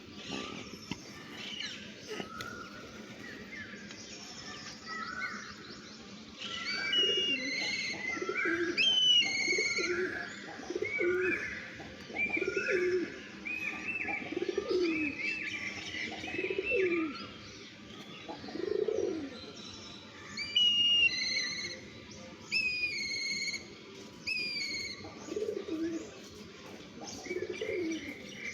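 Several birds calling together: repeated low calls mixed with many higher chirps and short whistled notes that glide in pitch, busiest from about a quarter of the way in until near the end.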